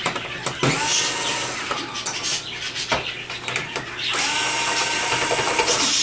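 Cordless drill/driver running in two spells of about one and a half to two seconds, the first rising in pitch as it spins up, with a short click between them, as it backs screws out of a flat-screen TV's sheet-metal chassis.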